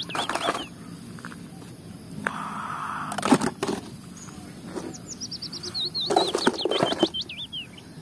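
Hard plastic toys knocking and clattering as they are handled and set down, with a short rustle of wet, muddy plastic. A songbird sings twice in the background, each time a run of quick, high, down-slurred whistled notes.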